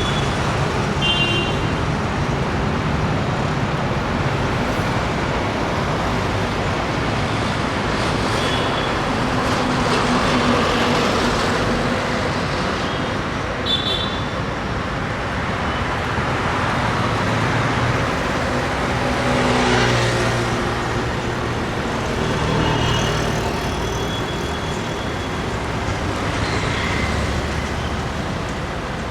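Busy city road traffic: a steady wash of engines and tyres, with short high horn beeps a few times. A heavier vehicle passes louder about two-thirds of the way through.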